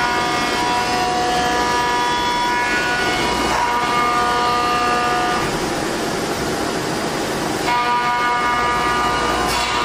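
Three-axis CNC milling machine cutting POM-C acetal plastic: a steady spindle-and-cutting noise with a high whine of several evenly spaced tones. The whine drops out about five and a half seconds in and comes back about two seconds later.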